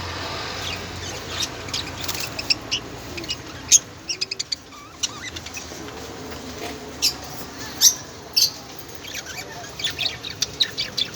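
Small birds chirping in many short, sharp calls, scattered irregularly, with a few much louder chirps standing out.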